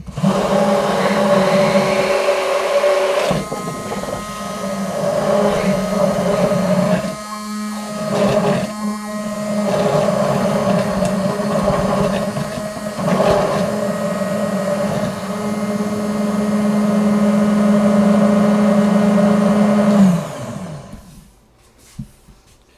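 Immersion (stick) blender motor running in a plastic cup of oil-and-vinegar dressing, a steady whir with two brief drops about seven and nine seconds in, emulsifying the dressing. It switches off about twenty seconds in and winds down with a falling pitch.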